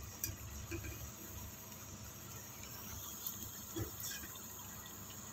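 Hot oil sizzling steadily as spinach pakoras deep-fry in a kadai, with a few faint clicks.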